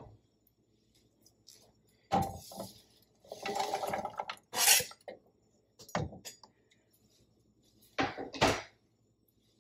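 Knife and plastic cutting board knocking and scraping against a skillet as chopped onions are scraped off the board into the pan, in several separate clattering bursts about 2, 4, 6 and 8 seconds in.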